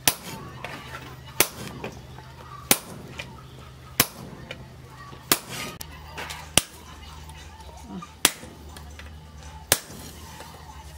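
Sledgehammer blows on hot steel cut from a tractor plough disc, struck on a post anvil: eight sharp metallic clangs, about one every second and a half, each ringing briefly.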